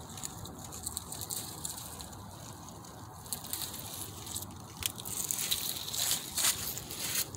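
Dry leaves and twigs crunching underfoot over a steady hiss, the crackles growing denser and louder in the second half.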